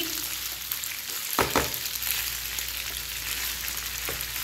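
Macaroni and vegetables sizzling in a frying pan while being stirred with a spatula: a steady frying hiss. There are two quick knocks about a second and a half in, and another near the end.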